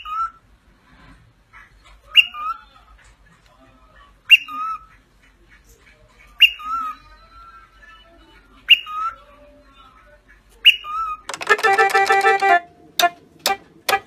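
Cockatiel whistling the same short call six times, about every two seconds: each call is a sharp high note dropping into a lower one. About eleven seconds in, an electronic keyboard starts sounding clusters of notes at once as a cockatoo's beak presses the keys.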